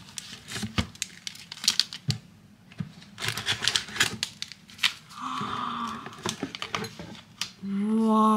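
Plastic chocolate-bar wrappers and packets crinkling and tapping as they are handled in a cardboard gift box, with many quick clicks and rustles. About five seconds in there is a short hummed sound, and near the end a long drawn-out vocal 'ooh', slightly falling in pitch, which is the loudest sound.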